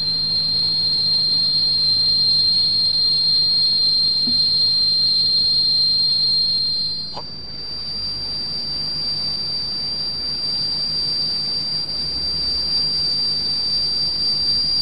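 Steady high-pitched test tone driving a sand-covered vibrating plate, with a constant hiss underneath. About seven seconds in, the tone jumps slightly higher in pitch as the frequency is changed, and the sand pattern shifts with it.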